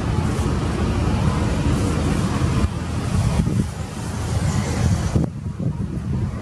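Steady low motor rumble mixed with wind noise on the microphone. It drops briefly about five seconds in.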